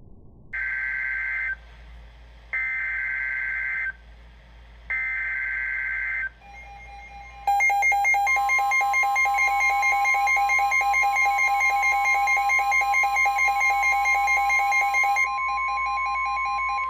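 Emergency Alert System activation: three short bursts of SAME header data tones, each about a second long with about a second between them, then the steady two-tone EAS attention signal for about nine seconds, its lower tone dropping out near the end. It heralds a severe thunderstorm warning.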